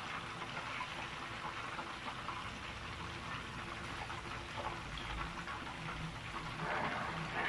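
Oil sizzling and crackling steadily around a whole chicken deep-frying in a pan, a little louder near the end.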